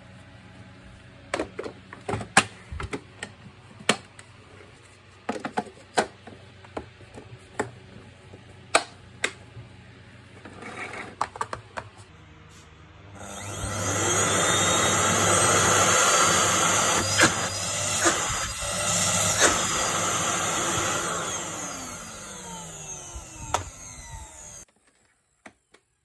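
Plastic housing parts of an Electrolux JetMaxx canister vacuum cleaner click and knock as they are fitted together. About halfway through, the vacuum's motor starts with a rising whine and runs loudly for about ten seconds, falling in pitch near the end before it stops abruptly. The cleaner is running again after its circuit board was replaced.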